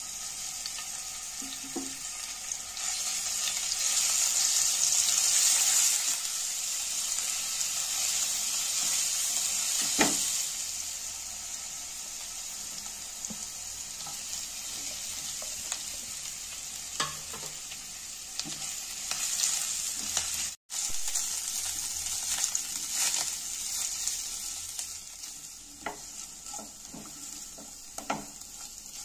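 Ginger-garlic paste and chopped green chilli sizzling in hot oil in a non-stick frying pan, the hiss loudest in the first ten seconds. Then shredded boiled chicken goes in and is stirred with a spatula, with scrapes and taps against the pan over a steady sizzle.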